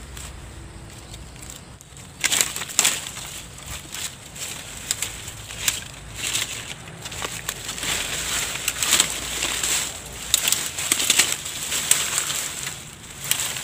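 Dry grass, stems and twigs crackling and snapping as they are pulled up by hand and trampled underfoot, in irregular bursts starting about two seconds in.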